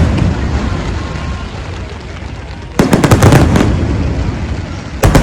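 Fireworks bursting: a rapid cluster of sharp bangs about three seconds in and another starting near the end, with a rumble carrying on between them.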